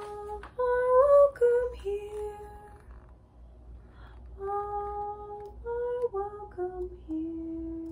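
A woman singing a short, slow tune without accompaniment: two phrases of held notes with a short pause between them, the last note held longest near the end.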